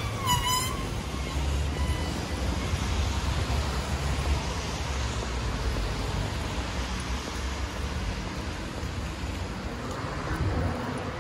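Road traffic on a wet city street: a steady low rumble and hiss of passing cars, with a brief high-pitched ring right at the start.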